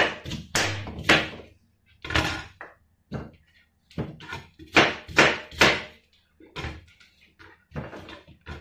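Kitchen knife chopping apple into chunks, the blade knocking down on the cutting surface in about a dozen irregular chops.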